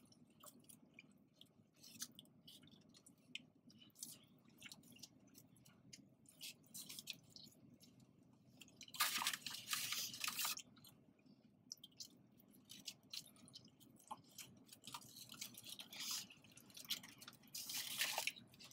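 Close-miked mukbang eating sounds: a person chewing fast food, with wet mouth noises and small clicks, and two louder crunchy, rustling stretches about nine seconds in and near the end.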